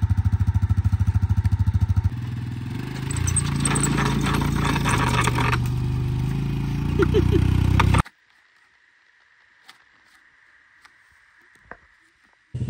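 ATV engine idling with a steady rapid putter; about two seconds in the sound changes, and about eight seconds in it cuts off abruptly to near silence with a few faint clicks.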